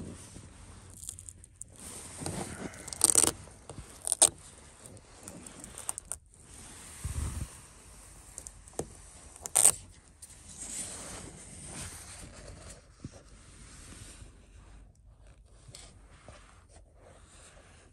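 Irregular scraping and rustling handling noises, with a few sharp clacks, fading out towards the end.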